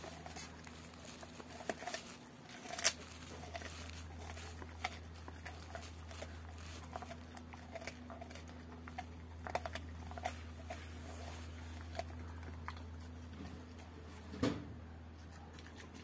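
Rottweiler chewing a raw pork bone: irregular clicks and cracks of teeth on bone, the loudest about three seconds in and again near the end.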